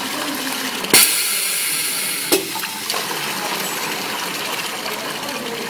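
Semi-automatic liquid filling machine dispensing a shot: a sharp click about a second in opens a louder hiss of liquid that lasts over a second, then another click cuts it back to a steady rushing noise.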